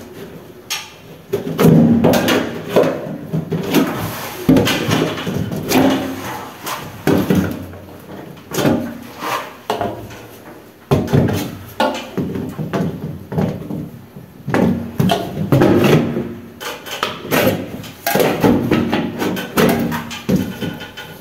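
PVC ceiling panel being pushed and worked into its edge channel by hand and with a spatula: irregular knocks, taps and plastic-on-plastic scraping.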